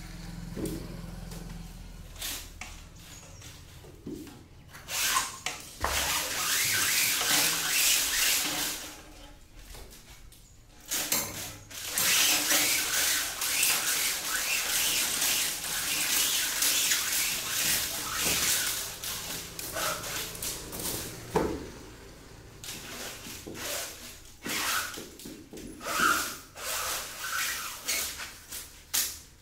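Rubbing and scraping handling noise in two long stretches, the second lasting about seven seconds, with scattered knocks and clicks between them.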